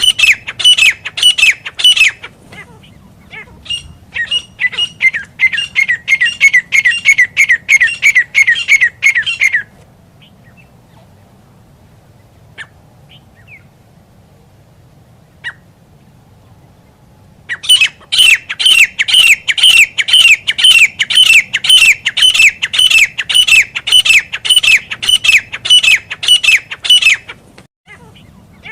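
Grey francolin calling: long runs of loud, harsh notes repeated fast, three or four a second, each dropping in pitch. The calling breaks off for several seconds in the middle, then starts again in a long series.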